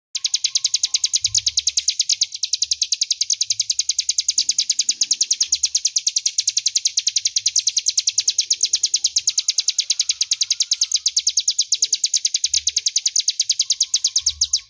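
Ciblek gunung (a prinia) singing one long, loud, rapid trill in the 'ngebren' style, an even rattle of high notes at about eight a second, clear and unbroken for around fourteen seconds.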